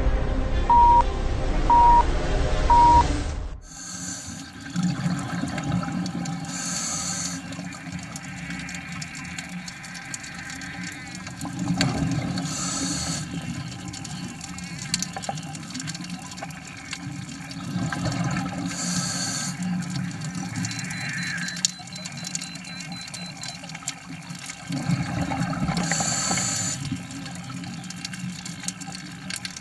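Three short beeps about a second apart over music that cuts off suddenly, then the underwater sound of a scuba diver breathing through a regulator: a hissing inhale and a gush of exhaled bubbles, repeating about every six seconds.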